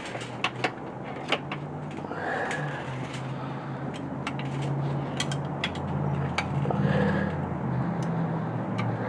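Scattered metallic clinks and knocks of hand tools against engine parts, at irregular times, during work on the alternator mounting bolts. A steady low hum runs underneath.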